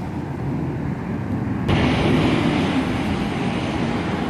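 Road traffic noise: a steady low vehicle rumble, with a louder rushing noise setting in suddenly about one and a half seconds in and carrying on.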